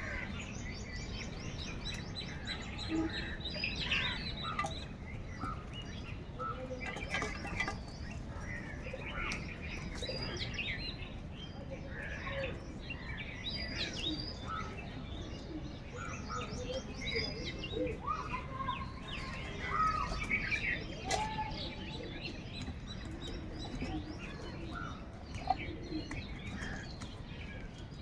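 A flock of crows calling over one another: a busy, unbroken run of short overlapping calls.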